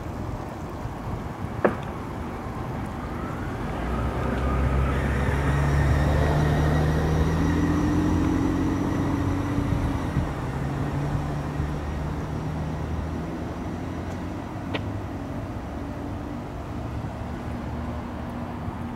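A motor vehicle's engine passing by: a low rumble that grows louder about four seconds in and fades away over the next several seconds.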